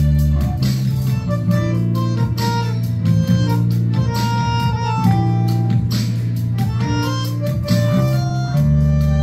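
Tango band playing: an electric bass holds long low notes under violin and bandoneon melody lines, over a steady beat.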